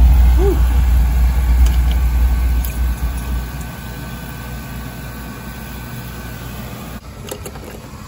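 Steam boiler's burner just fired, running with a low rumble that is loudest for the first few seconds and then settles to a steadier, quieter run. A few light clicks near the end.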